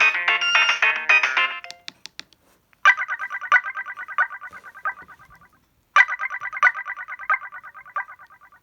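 Samsung SGH-D600's speaker playing its pre-downloaded polyphonic ringtones. One chordal melody ends about two seconds in, then a new tone starts: a rapid pulsing trill that fades out, played twice about three seconds apart.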